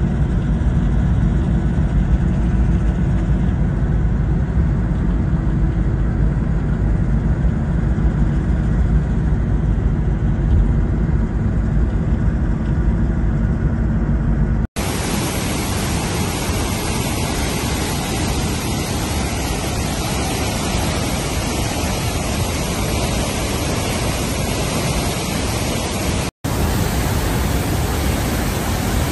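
A steady low rumble for about the first 15 seconds, then, after a sudden cut, the loud, even roar of Murchison Falls on the Nile, its rushing water and spray filling the sound, broken by one more short cut near the end.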